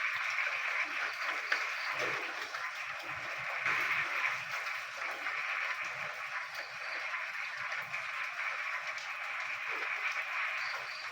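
Dense chorus of many frogs calling together in the rain, a steady unbroken mass of calls.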